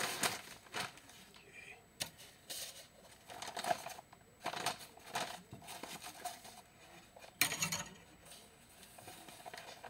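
Irregular clicks, taps and short scraping and rustling sounds of containers and materials being handled while a cement or plaster mix is prepared, with the loudest burst near the end.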